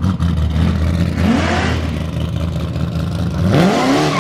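Supercharged street car engine idling loudly, blipped up in revs twice: briefly about a second in and harder near the end.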